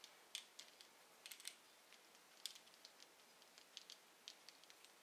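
Faint, irregular clicks and ticks of small metal hardware and a hand tool being handled while a nut is fitted onto a bolt.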